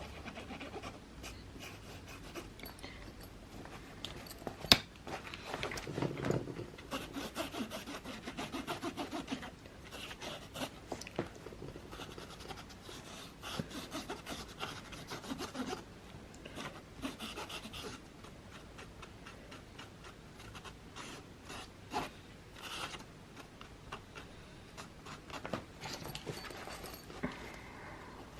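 Paint-marker tip rubbing back and forth on fabric in runs of quick, rhythmic strokes while colouring in a drawing, with a sharp click about five seconds in.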